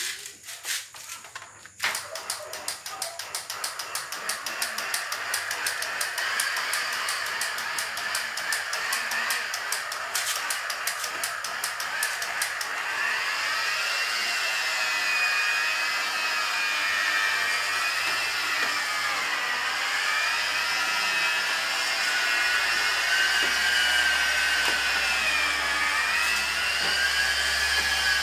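Electric rotary car polisher with a foam pad working compound into a car's bonnet. It starts about two seconds in with a fast, even ticking. About halfway it settles into a steady motor whine whose pitch dips and recovers several times as it is worked over the paint.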